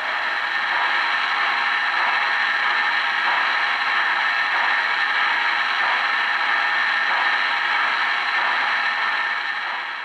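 Steady mechanical whirring and clatter from an O-gauge model train layout, easing off slightly near the end.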